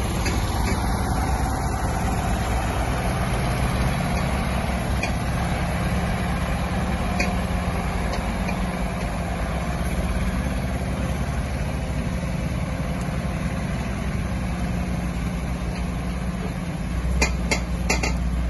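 Heavy truck's diesel engine running steadily at low revs. A few sharp clicks come near the end.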